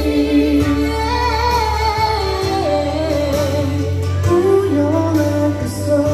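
A man and a woman singing a duet into handheld microphones over instrumental backing music with a steady bass.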